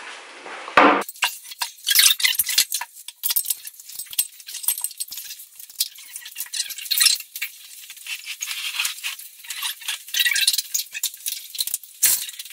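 Metal clips and hardware of home workout gear clinking and jangling as it is handled, with many irregular sharp clicks and rattles, busiest near the middle and the end.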